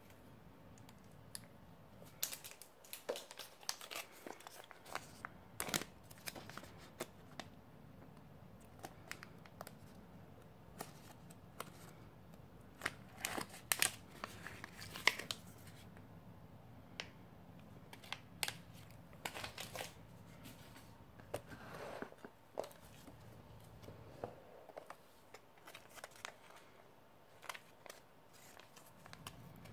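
Plastic, foil and paper ration wrappers crinkling and rustling as they are handled, with many irregular sharp crackles.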